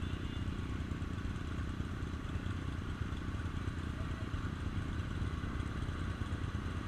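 A vehicle engine runs steadily at an even pitch, giving a low, constant rumble with no revving.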